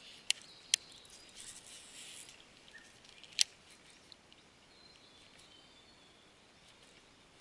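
Baitcasting reel and rod clicking as a cast is made and the retrieve begins: two sharp clicks close together just after the start and a louder single click about three and a half seconds in, over faint outdoor quiet.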